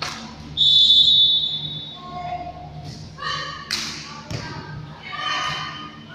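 Referee's whistle blown in one long steady blast. A few seconds later come sharp slaps of a volleyball being hit and players calling out.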